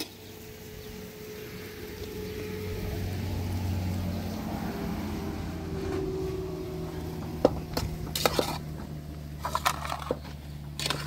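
An engine running steadily, swelling over the first few seconds and then holding, with a few sharp knocks in the second half.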